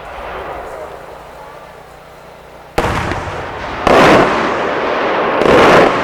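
8-inch aerial firework shell breaking overhead: a sharp boom about three seconds in, followed by two louder, longer booms about a second and a half apart.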